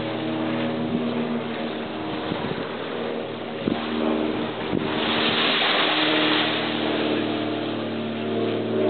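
A motor engine hums steadily at a fairly constant pitch over a steady rushing background.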